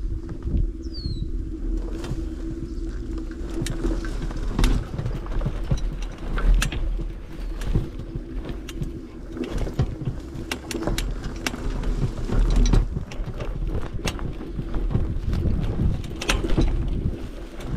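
QuietKat electric bike riding over rough ground: a steady motor hum under heavy wind buffeting on the microphone, with frequent knocks and rattles from the bumps.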